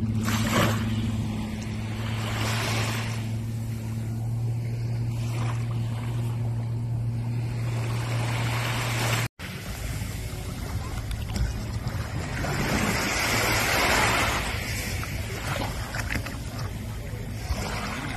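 A watercraft engine running with a steady low hum that breaks off suddenly about nine seconds in, followed by wind and water noise with swells of hiss.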